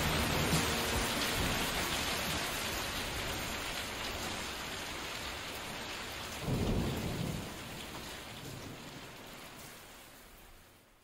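Steady rain with a low roll of thunder about six and a half seconds in, the whole gradually fading out to silence at the end.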